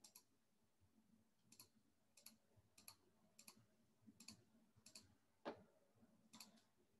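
Faint clicking of a computer mouse, short double clicks coming about every half second to second, with a soft knock about five and a half seconds in.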